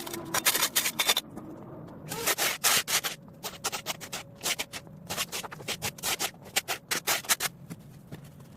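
Hand shears cutting through leafy bush growth: a run of short, crisp snips, several a second in irregular clusters, with leaves rustling.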